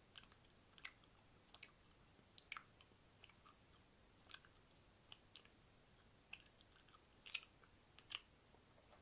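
Wet mouth sounds close to a microphone: quiet, sharp, wet clicks and smacks at an irregular pace of roughly one or two a second, with near silence between them.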